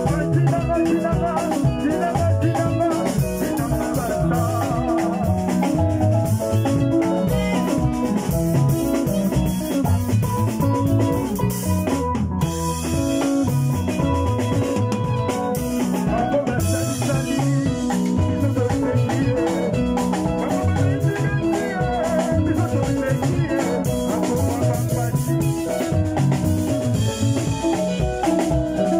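Live instrumental band music: electric guitars and a Yamaha Motif ES keyboard playing a steady, upbeat groove over a drum beat.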